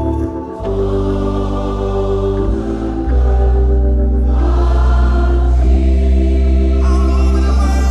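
Gospel music: a choir singing over sustained organ chords and deep bass, the music getting louder about three seconds in.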